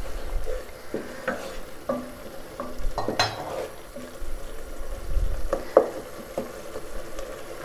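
A wooden spoon stirring and scraping a thick onion-and-tomato masala in a pot, the mixture sizzling as it cooks down. The scrapes and knocks come irregularly, with one louder scrape about three seconds in.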